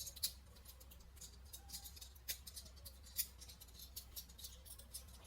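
Small plastic Transformer toy being transformed by hand: light, irregular clicks and snaps of its plastic parts and joints being moved.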